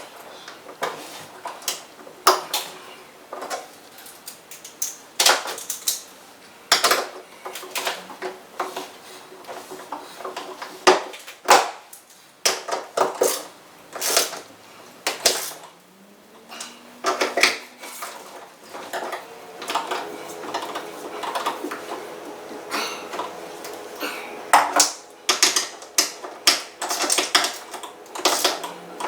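Irregular metallic clinks, clacks and knocks of steel TV wall-mount parts, bolts and tools being handled and fitted, at an uneven pace.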